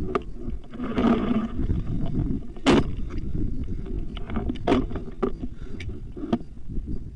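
Scattered airsoft gun shots: about six sharp cracks spread over a few seconds, the loudest about two and a half seconds in.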